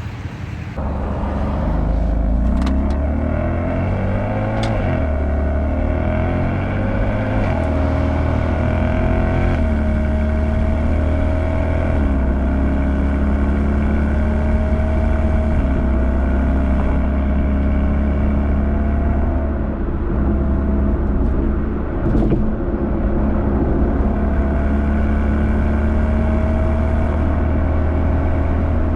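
BMW M4's S55 twin-turbo inline-six with catless downpipes, a single mid pipe and the stock muffler, running under way as the car drives. The engine pitch shifts during the first third, then holds fairly steady as it cruises.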